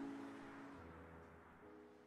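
Background music fading out: sustained chord tones dying away, with a soft new chord entering near the end.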